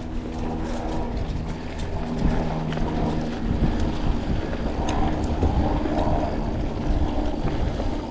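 Mountain bike rolling along a dirt trail: wind buffeting the microphone over a low tyre rumble, with scattered short clicks and rattles from the bike and trail.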